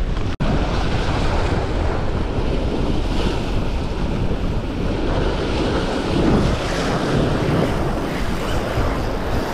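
Waves surging and breaking against the stone blocks of a jetty, with steady wind buffeting the microphone. The sound drops out for a split second about half a second in.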